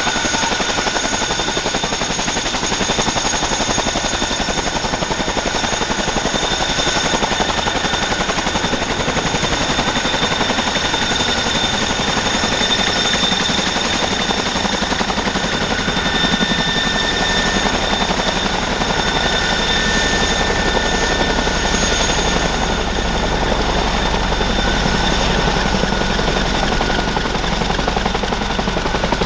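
Boeing CH-47F Chinook on the ground with its tandem rotors turning: a rapid, steady beat of the blades over the high, constant whine of its twin Honeywell T55 turboshaft engines. A deeper rumble builds in the second half.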